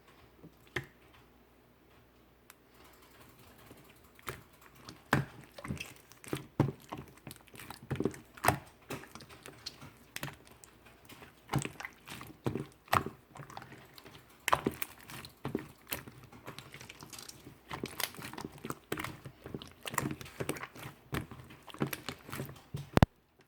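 Slime being squished and kneaded by hand, making irregular wet clicks and pops that start sparse and grow busier after a few seconds, then cut off abruptly near the end.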